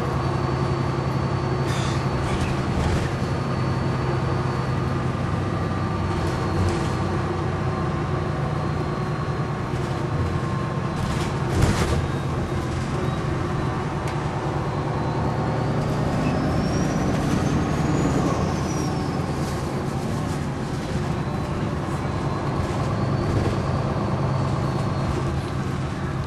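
Interior sound of a MAN A22 single-deck bus with a ZF automatic gearbox driving steadily: engine and transmission running, with cabin rattles and a sharp knock about halfway through. A faint high whine rises and falls about two-thirds of the way in.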